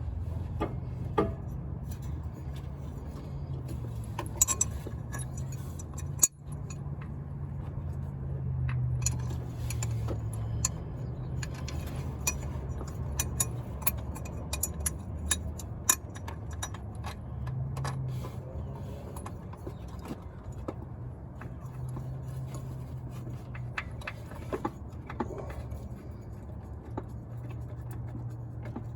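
Scattered light metallic clinks and taps of hand tools and parts being handled during repair work, over a steady low hum.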